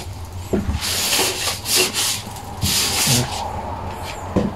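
A few brisk brushing strokes over a surface during cleaning, each a short hiss lasting about half a second, with a few light knocks between them.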